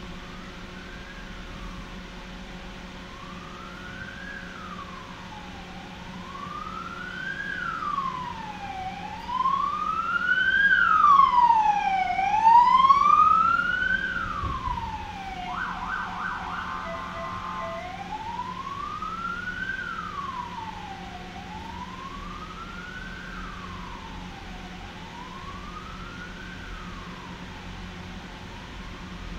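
An emergency-vehicle siren wailing, sweeping slowly up and down about once every three seconds. It grows louder to a peak about halfway through and fades as it passes, and just after the loudest part it switches briefly to a fast yelp before going back to the wail. Heard from inside a tram.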